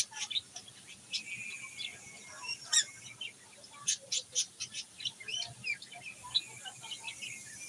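Small birds chirping in many quick, sharp high notes, some sliding in pitch, with the loudest chirp about three seconds in, over a faint steady high hiss.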